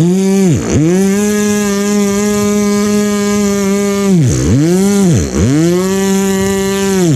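Beatboxer's vocal imitation of a motor-like object sound: a loud, steady buzzing tone that drops sharply in pitch and swings back up about four times, near the start, twice past the middle and at the end.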